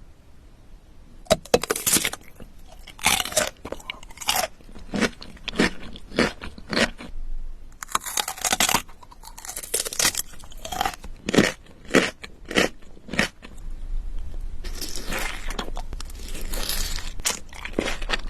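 Close-up eating sounds: a run of sharp, crunchy bites and chewing, with a denser stretch of continuous noise in the last few seconds.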